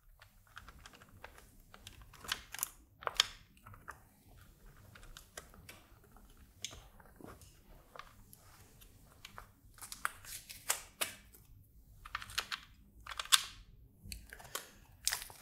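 Irregular light clicks and taps of small bolts and acrylic panels knocking together as the bolts are worked through holes in the stacked acrylic, spacers and circuit board.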